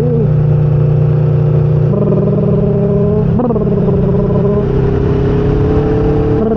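Motorcycle engine running at speed with wind rush. The engine note holds steady, then steps to a new pitch a few times, with a short rising blip about three and a half seconds in.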